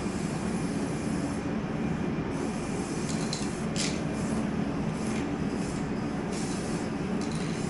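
A steady low rumbling hum, with a few short hisses of a spray paint can being sprayed onto a wall.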